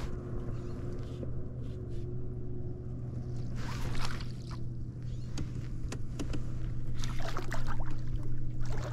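Steady low hum of a kayak's electric motor, with short splashes and rattles around the middle and near the end as a hooked catfish is fought beside the kayak.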